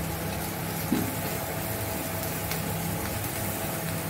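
Chicken pieces sizzling in their own released juices in a steel pan on a gas burner: a steady hiss over a low hum, with a light knock about a second in.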